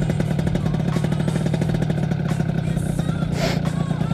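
Yamaha F1ZR two-stroke underbone motorcycle engine running at steady revs while being ridden, with a brief hiss about three and a half seconds in.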